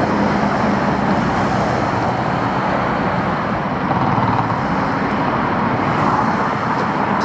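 Steady road traffic noise, an even rush with no distinct passing vehicle or engine note.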